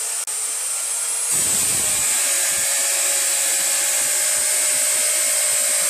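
Miter box saw fitted with an abrasive cutting disc, its motor running with a high whine, then grinding through a steel bar from about a second in with a steady, louder grinding whine.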